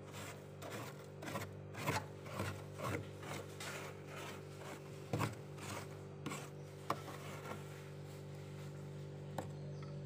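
Soft freezer frost scraped and crunched with a plastic scoop: a quick run of rasping scrapes in the first three seconds, then a few single sharper crunches and clicks. A steady low hum runs underneath.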